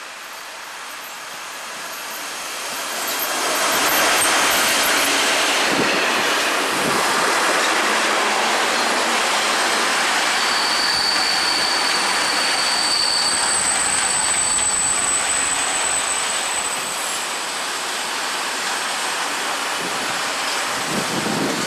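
SBB electric freight train approaching and passing close by, its rolling wagon noise swelling over the first four seconds and then holding steady. About halfway through the wheels give a high-pitched squeal, followed by a thinner, higher one, with a few low thuds from the wagons over the rails.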